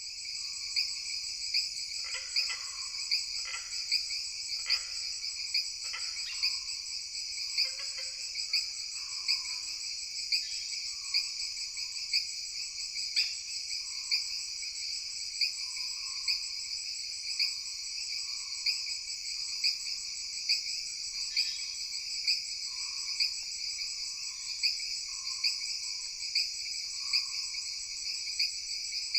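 Forest ambience: a steady, dense chorus of insects, with a sharper chirp standing out about once a second. A few shorter, lower calls come in during the first several seconds.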